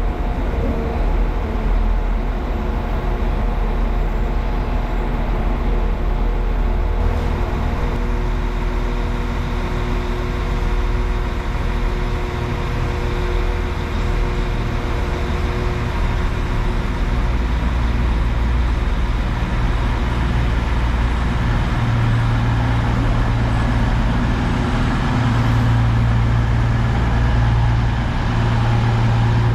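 Diesel train engine running with a steady low rumble and a hum, the rumble growing heavier about three-quarters of the way through.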